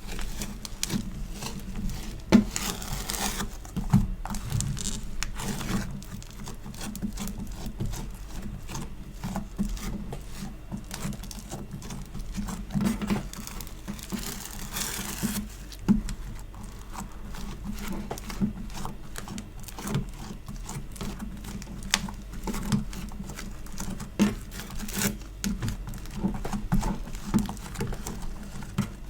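Hands squishing and pressing sticky store-bought slime or foam clay, making a dense, irregular run of small sticky pops and clicks. Twice, about three seconds in and again near the middle, there is a longer crackling hiss.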